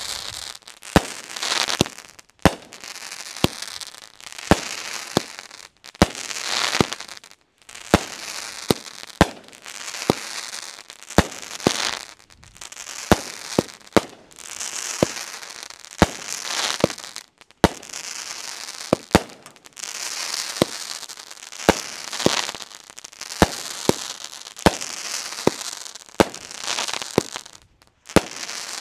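A 36-shot consumer firework cake ('Sigma') firing shot after shot in quick succession, roughly one sharp bang every half second to a second. Each bang is followed by about a second of hissing noise.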